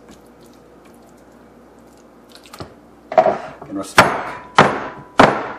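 Kitchenware being handled on a countertop: a brief scrape, then three sharp knocks about half a second apart, followed by a faint ringing tone.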